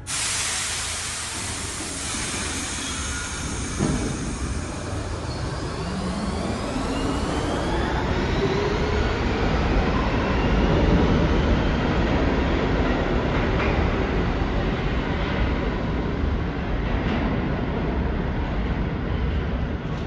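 R68 subway train pulling out of the terminal station. Its traction motors whine, rising steadily in pitch as it picks up speed, over the rumble of wheels on the rails, with a sharp knock about four seconds in.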